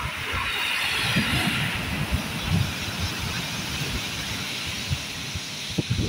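Sea waves breaking and washing up a shingle beach of rounded pebbles: a rushing hiss that swells about a second in, with gusts of wind buffeting the microphone.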